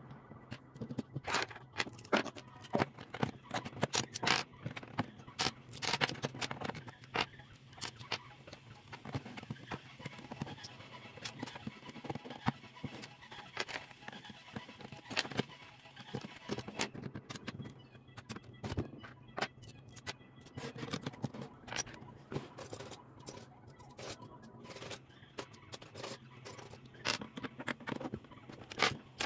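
Plastic Lego bricks clicking and rattling as they are handled and pressed onto a baseplate: many irregular sharp clicks throughout.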